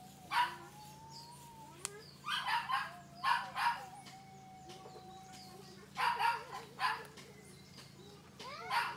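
A dog barking repeatedly, in short groups of one to three barks. A faint, steady high tone runs behind it.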